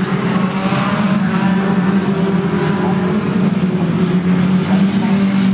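Engines of several banger-racing cars running together on the track, a loud, steady mix with no single crash standing out.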